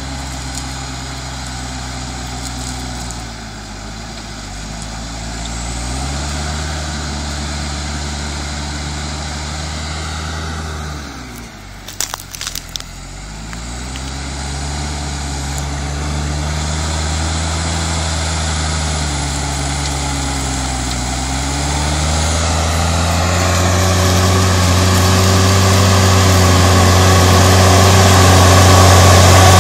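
Case IH Puma 155 tractor's six-cylinder diesel engine running under load while pulling a reversible plough through the soil. The engine note sags and recovers several times, dropping lowest about halfway through, where a few sharp clicks are heard. It then grows louder and steadier near the end as the tractor comes close.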